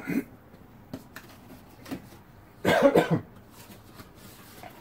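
A man coughs once, a short rough cough about halfway through, with a few faint clicks around it.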